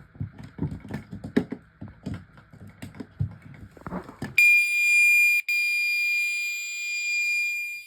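A run of clicks and knocks as the alarm is handled and plugged in. About four and a half seconds in, the Gentex fire alarm horn starts suddenly with a loud, steady, high-pitched tone that breaks off once briefly, showing the unit still works.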